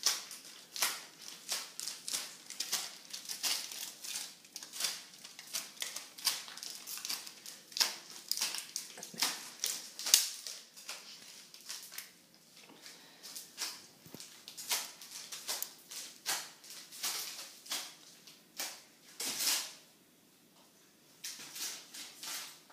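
Blue plastic dustpan stuck on a toddler's foot, clattering and scraping on a tiled floor with his steps. It makes quick, irregular clacks and pauses briefly near the end.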